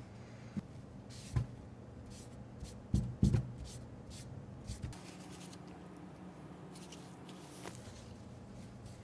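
Paper towel rubbing and scraping over a pistol slide, wiping off nail polish, with a few short knocks as the slide is handled, the loudest around three seconds in.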